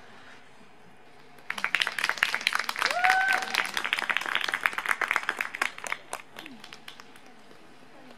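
Spectators applauding: a dense patter of clapping starts about a second and a half in and dies away near the end, with one short rising shout from the crowd among the claps.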